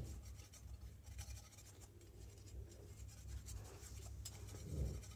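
Flat metal spatula scraping the inside of a kadhai in short, irregular strokes, scooping out fried spiced potato filling. The scraping is faint.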